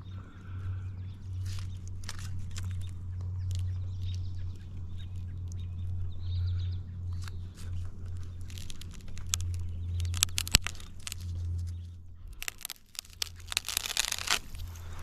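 Chainsaw idling with a steady low hum, with scattered cracking and crackling of wood and branches that grows busier in the second half and includes one sharp crack about ten seconds in, as the cut top of a Douglas fir gives way.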